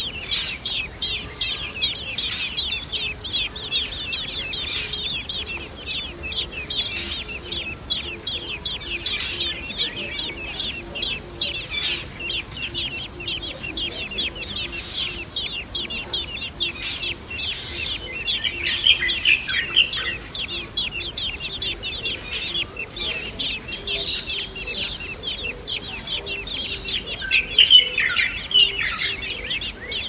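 Blackbird nestlings begging at the nest: a continuous rapid stream of high, thin chirps that grows louder twice, about two-thirds of the way through and near the end.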